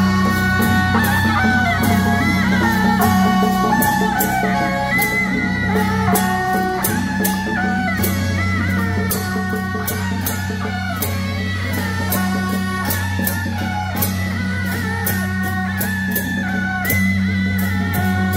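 Beiguan band playing: several suona horns carry a wavering melody over rapid cymbal clashes, several strikes a second, with a steady low hum underneath.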